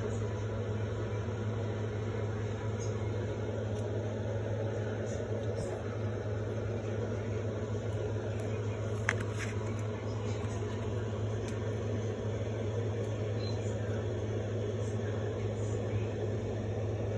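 Steady low hum with a few faint clicks, one sharper click about nine seconds in.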